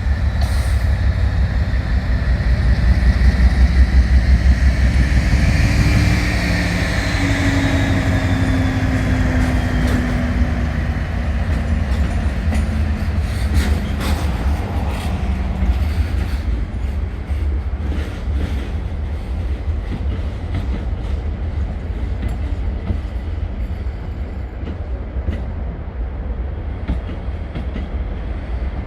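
Heavy British diesel-electric locomotives (a Class 56 and a Class 50) working a train past, with a deep engine throb loudest a few seconds in and an engine note falling in pitch as they go by. About halfway through, a run of wheel clicks over rail joints follows as the train draws away.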